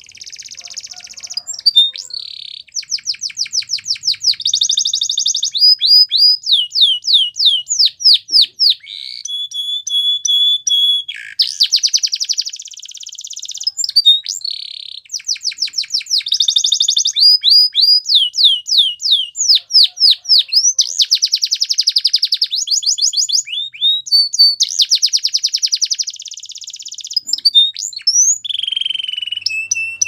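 Domestic canary singing a long continuous song of fast repeated trills, rapid descending sweeps and buzzy rolls, with a held steady whistle about ten seconds in.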